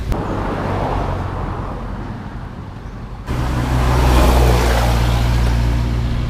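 A motor vehicle's engine running close by, with road traffic noise. About three seconds in, the sound jumps suddenly louder and the low engine drone gets stronger.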